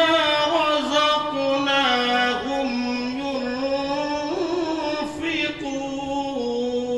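A man reciting the Quran in melodic tajweed style (qirat), drawing out one long unbroken phrase on a held vowel. The pitch steps slowly downward in small ornamented turns.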